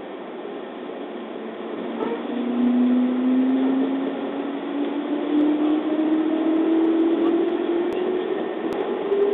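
On-board running sound of a JR East 211 series electric train pulling away from a station. Its traction motors start to whine about two seconds in, and the whine climbs steadily in pitch as the train gathers speed, over the rumble of wheels and car body.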